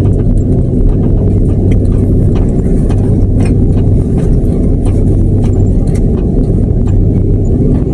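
Jet airliner cabin noise while taxiing: a loud, steady low rumble of the engines and the wheels rolling on the taxiway, with frequent small clicks.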